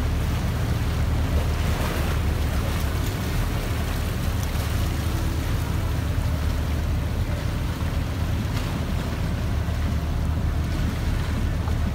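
Tour boat's engine running steadily with a low rumble, with wind and water noise.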